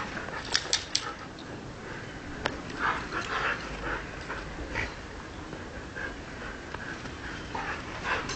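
Two huskies play-fighting in snow, giving short vocal noises in scattered bursts, with a cluster about three seconds in.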